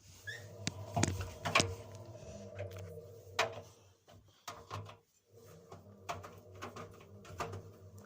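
Clicks and knocks of a washing machine's controls being worked by hand, with a steady low hum underneath.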